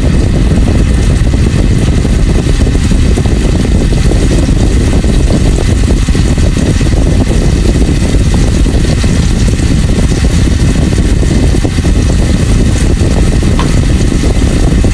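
Garlic cloves frying in bubbling butter in a stainless steel pan: a steady, loud sizzle with dense crackling.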